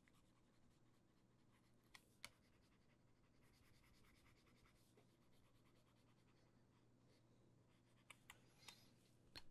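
Near silence: faint room tone with a few soft clicks, two about two seconds in and several more near the end, as lines are erased in a drawing program.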